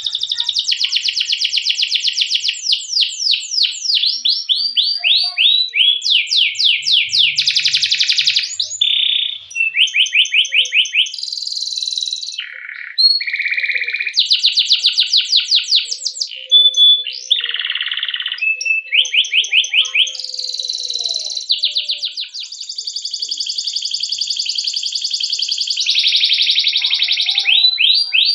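Canary singing a long, continuous song of fast rolling trills: runs of rapidly repeated notes, some sweeping downward, changing to a new phrase every second or two, with a few short held whistled notes midway.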